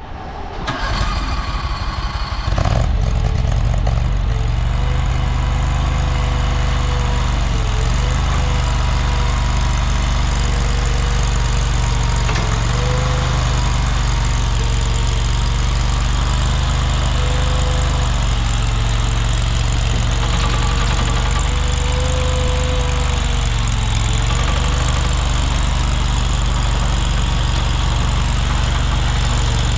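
Engine of a tracked stand-on mini skid steer coming up over the first couple of seconds, then running steadily, with a whine that dips briefly in pitch several times.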